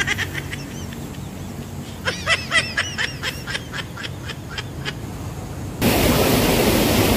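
A bird gives two quick runs of rapid, repeated calls, a short one at the start and a longer one about two seconds in, over the low rush of a swollen stream. Near the end the sound cuts to a louder, steady rush of muddy water flowing fast through a narrow ditch.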